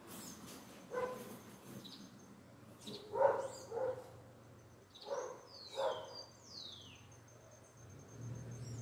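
A dog barking five times, mostly in pairs. Birds call with two high falling whistles about two thirds of the way through.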